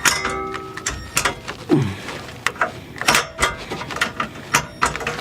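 Irregular metallic clicks and knocks of hand tools being worked on a tight 10 mm bolt under a car.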